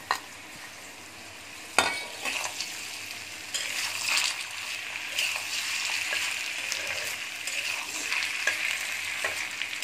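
Raw potato pieces sizzling in hot mustard oil in a kadhai, stirred and scraped with a metal spatula. Two sharp knocks from the steel bowl against the pan come in the first two seconds, and the sizzle grows louder from about three and a half seconds in as the potatoes are turned through the oil.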